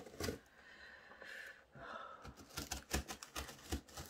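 A knife slitting the packing tape on a cardboard box: a faint scraping, then a run of light clicks and taps as the tape and cardboard are worked by hand.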